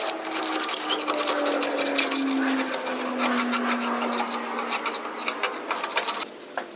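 Oxy-fuel gas cutting torch cutting the steel of a JCB loader bucket: steady hiss with dense crackling as the molten metal is blown out, under a low tone that slowly falls in pitch. It stops abruptly near the end.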